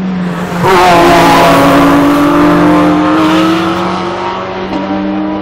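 Racing car engines at full throttle passing at a circuit. A loud engine note comes in about a second in, dips in pitch, then climbs steadily as the car accelerates before fading. A second car's engine comes in near the end.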